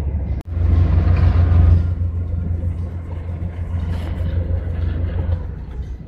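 Engine and road rumble heard inside the cab of a GAZelle van on the move, low and steady. It drops out for an instant about half a second in, then comes back louder for a second or so before settling.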